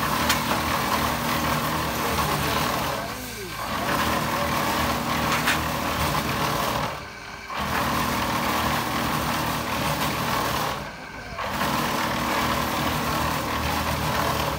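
Drum concrete mixer running: a steady mechanical noise over a low hum that drops away briefly about every four seconds.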